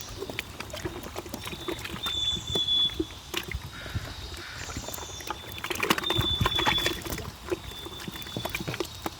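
Water splashing with scattered knocks and clicks, under a thin high call repeating about every two seconds.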